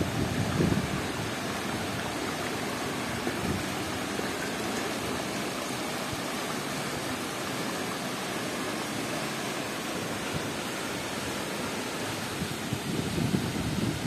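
Steady rush of water from a waterfall and the stream below it in a narrow rock gorge. Low gusts of wind buffet the microphone briefly near the start and again near the end.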